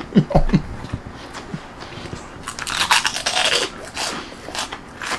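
Close-up crunching and chewing of fried pork rinds. The loudest run of crunching comes a little past halfway and lasts about a second, followed by scattered smaller crunches.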